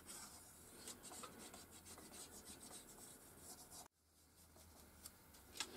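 Faint scratching and rubbing of a hand tool pressing a thin metal foil diaphragm into the grooves of a 3D printed die, embossing its corrugations. The sound drops out briefly about four seconds in.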